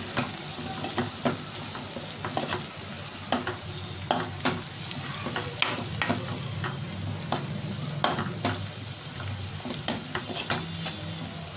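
Onions, tomatoes and green chillies sizzling in oil in a pan while a spatula stirs them, with frequent short scrapes and knocks of the spatula against the pan.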